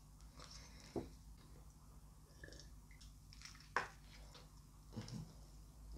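Quiet chewing of a mouthful of burger, with a few soft clicks.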